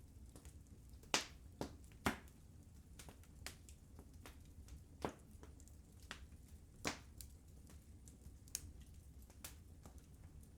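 Burning wood crackling in a fireplace: irregular sharp pops and snaps, a few louder ones standing out, over a low steady rumble of the fire.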